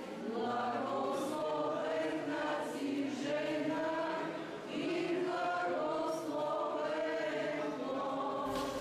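A choir singing a slow Orthodox chant in several voices, with long held notes, quiet in the background.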